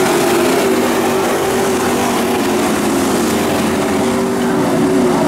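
Several dirt-track pro trucks racing around the oval. Their engines run hard and overlap, their pitches wavering as the trucks pass.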